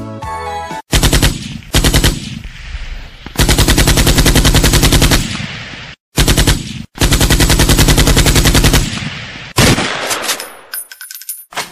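Rapid gunfire in about six bursts, the shots so close together that it sounds like machine-gun fire, with short gaps between bursts; the longest bursts last nearly two seconds.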